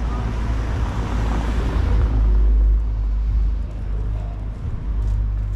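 A car passing along the street, its noise fading over the first few seconds, over a steady low rumble.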